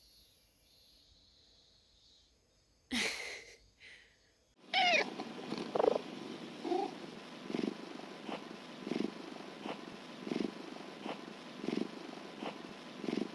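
Domestic cat purring close up, pulsing about one and a half times a second, after a short falling meow about five seconds in. A brief rustle sounds about three seconds in.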